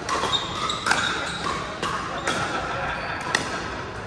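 Pickleball paddles striking a hard plastic pickleball in a doubles rally: several sharp pops, about one a second, echoing in a gymnasium, with a brief high squeak about half a second in and background chatter.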